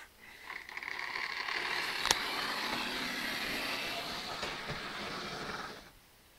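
A model railway train running on the track: steady whirring and rattling of the locomotive's electric motor and wheels on the rails, with one sharp click about two seconds in. It stops suddenly near the end.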